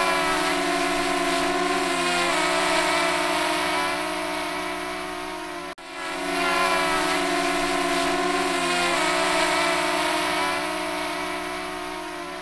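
Quadcopter drone's propellers whining in flight: a steady multi-tone buzz that dips briefly in pitch and recovers. The sound cuts out for an instant about six seconds in and the same stretch repeats.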